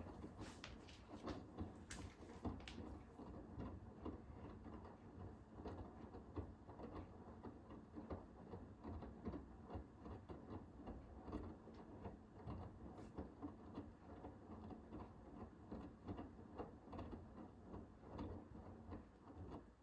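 Hoover H-WASH 500 washing machine drum turning and tumbling the wash load, a low rumble with many irregular small clicks and taps. It stops right at the end.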